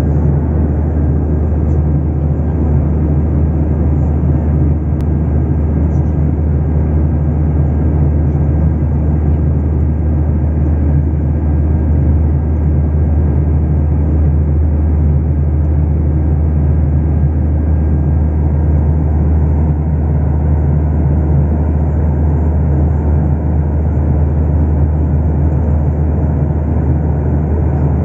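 Steady cabin noise of an airliner in flight: a loud, even, low drone of engines and rushing air that does not change.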